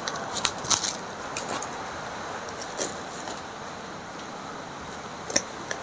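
Gift packaging being handled and opened: rustling and crinkling with scattered sharp crackles, several in the first second or so and one more near the end.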